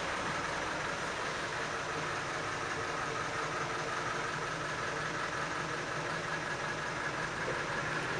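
Fiat 615 N truck engine running steadily while the vehicle moves along, heard from inside its rear passenger compartment.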